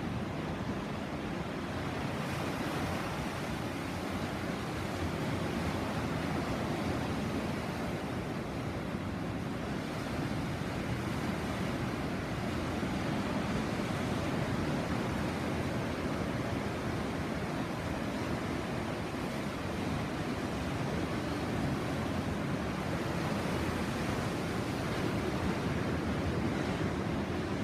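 Sea surf washing onto the shore: a steady rush of waves that swells and eases gently.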